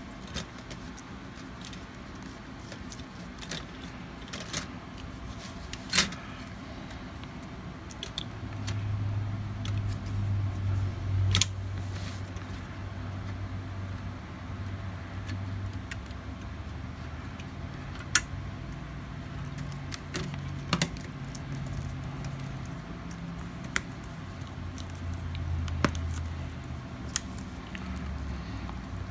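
Scattered sharp clicks and taps of plastic and metal laptop parts being handled during reassembly. A low hum that wavers in pitch comes in about nine seconds in.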